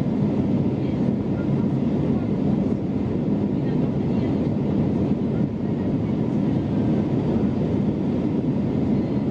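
Steady cabin noise inside an Airbus A321-211 in flight: the even roar of its engines and the airflow over the fuselage, heard from a window seat.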